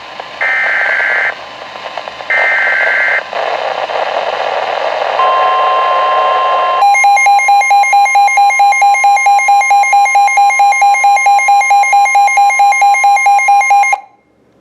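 NOAA Weather Radio emergency alert: two short bursts of warbling SAME data tones over radio static, then the steady 1050 Hz warning alarm tone. About seven seconds in, a loud beeping alarm joins it, pulsing about four times a second. Both cut off suddenly near the end.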